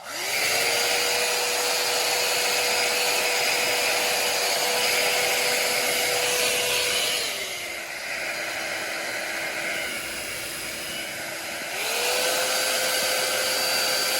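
Compact 7MAGIC foldable ionic hair dryer switched on, its motor whining up to speed and blowing steadily. About seven seconds in the whine drops in pitch and the blowing gets quieter as it changes to a lower speed, then near twelve seconds it rises back to full speed.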